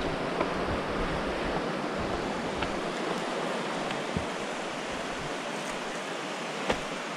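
Steady rushing of river water over rapids, an even hiss, with a few light clicks and one sharper tick near the end.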